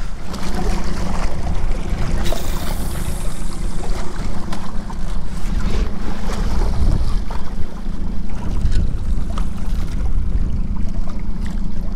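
Boat engine running steadily with wind buffeting the microphone and water washing against the hull, with a brief louder rush of wind or spray about two seconds in.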